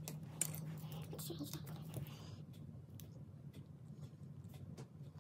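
Pencil writing on a spiral-bound notebook page: faint scratching with small ticks and taps, a few sharper ones in the first couple of seconds, over a low steady hum.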